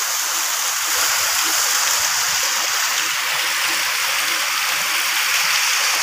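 River water rushing steadily, an even hiss with no breaks.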